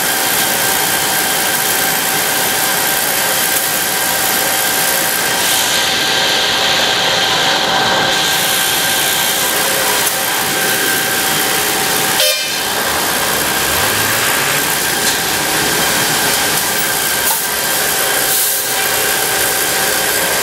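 Asphalt plant machinery running: a loud, steady noise with a few constant tones on top. A stronger hiss comes in for about two seconds about six seconds in, and the sound drops out briefly about twelve seconds in.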